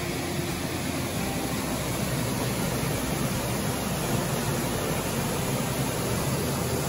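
Water pouring over a low concrete dam spillway into a pool: a steady rushing that grows slightly louder.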